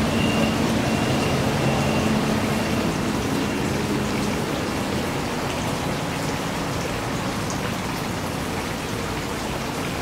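Steady rush of flowing water in a shallow pond stream, with a faint low hum that fades out about halfway through.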